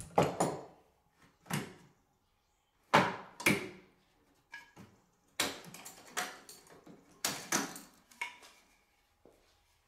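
A series of separate wooden and metal knocks and clunks as the metal clamps are set down on a wooden workbench top and the wooden vise jaw is unhooked and lifted away from the bench.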